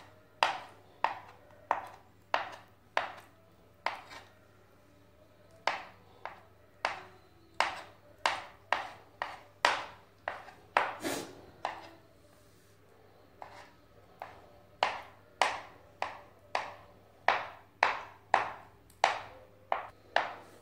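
Knife rough-chopping boiled egg whites on a cutting board: a long series of sharp knocks of the blade against the board, roughly two a second, pausing briefly twice.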